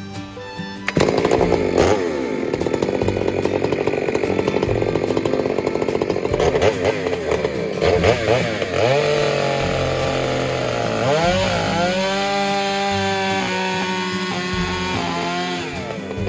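Two-stroke chainsaw cutting into a fir log, starting abruptly about a second in. The engine pitch sags under load and climbs again as it revs up near the middle, then holds steady at high revs.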